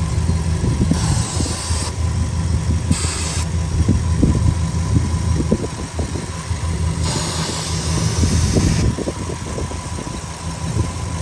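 Dodge Durango R/T's 5.9-litre Magnum V8 idling with a misfire, while an aerosol can of brake parts cleaner hisses in three sprays, a short one between two longer ones, around the intake to test for a vacuum leak at the intake gasket.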